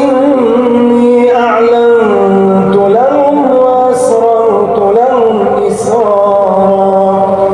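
A man chanting Quran recitation in melodic tajweed style. He holds long notes that waver and glide between pitches without a pause.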